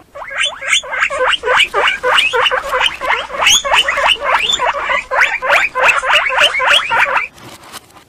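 Guinea pigs squeaking: a fast run of short, high squeaks, several a second, that stops about seven seconds in.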